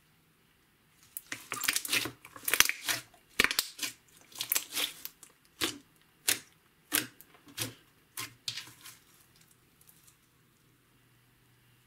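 Thick slime being squeezed and kneaded by hand, giving a run of crackles and pops. They start about a second in, come in quick clusters, then thin out into single pops a half-second or so apart, and stop after about nine seconds.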